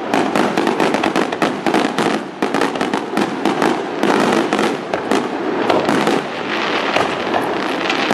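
Fireworks display: many aerial shells bursting in quick succession, a dense run of sharp reports, many a second, without a pause.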